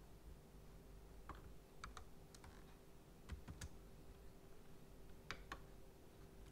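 Faint, scattered clicks of a laptop's keyboard and mouse, about nine in all, over a faint steady hum.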